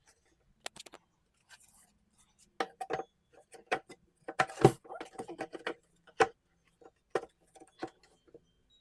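A run of irregular knocks, clicks and clinks from plant-stand parts being handled and fitted together during assembly, the loudest cluster about four and a half seconds in.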